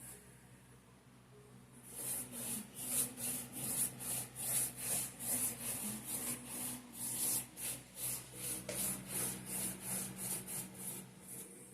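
Brush strokes rubbing varnish over a canvas, starting about two seconds in as a steady back-and-forth swish of about three strokes a second.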